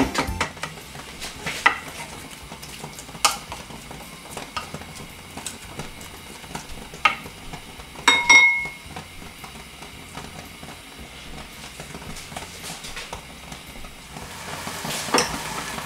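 A wooden spoon stirs shredded cabbage in an aluminium saucepan, with scattered light knocks against the pan over a soft sizzling hiss as the cabbage cooks. A single short metallic ring sounds about eight seconds in.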